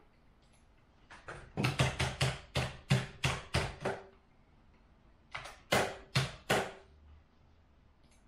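Typing on a laptop keyboard: a quick run of keystrokes lasting about three seconds, a short pause, then a few more strokes.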